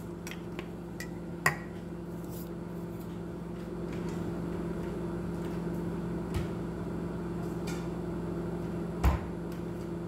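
Microwave oven running with a steady hum while it cooks, with a sharp click about one and a half seconds in and a louder knock near the end.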